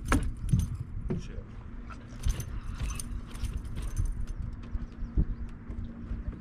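Irregular clicking and metallic rattling over a low rumble and a faint steady hum, as a pike is reeled in and lifted aboard an aluminium fishing boat.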